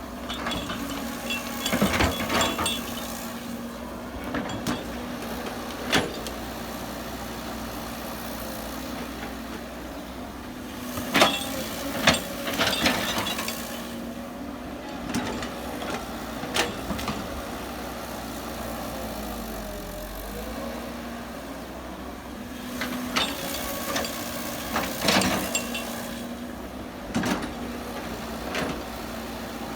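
Diesel engine of heavy earthmoving machinery running steadily, with sharp metallic clanks and knocks every few seconds from the machine working.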